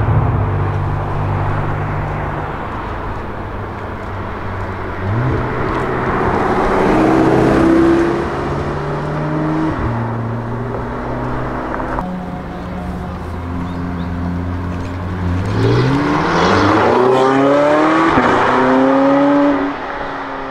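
Porsche 918 Spyder's 4.6-litre naturally aspirated V8 pulling away and accelerating, its revs climbing twice. The first climb eases off about halfway through; the second, steeper one rises to a high pitch and then drops away suddenly near the end.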